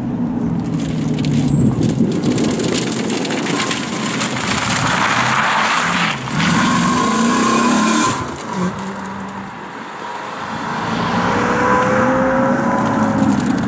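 Maserati coupé's V8 accelerating hard through a bend, revving up through the gears with short breaks at the shifts. It then fades, and a McLaren's twin-turbo V8 comes in rising and revving near the end.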